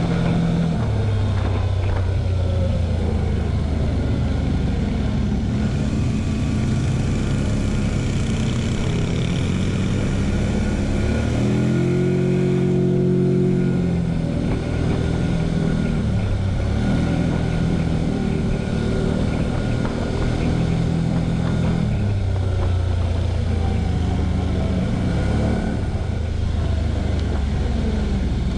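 TGB Blade 1000 quad's V-twin engine running under way, its pitch rising and falling with the throttle. It revs up to its highest pitch a little before halfway, holds there briefly, then drops back.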